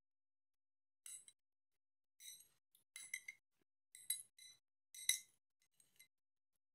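Metal spoon clinking against a plastic tub of yogurt as it is scooped, in a string of short, light clinks about once a second, some in quick pairs.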